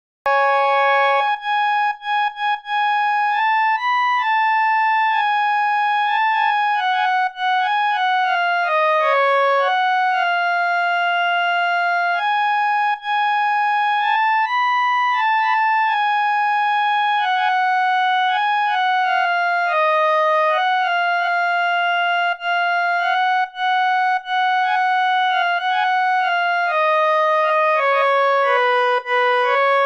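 Background music: a slow single-line melody on a synthesizer-like keyboard, one held note at a time, with no beat or accompaniment.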